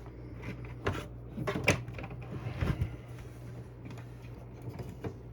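A VGA cable being handled and plugged into a CRT monitor: a few scattered clicks and knocks over a steady low hum.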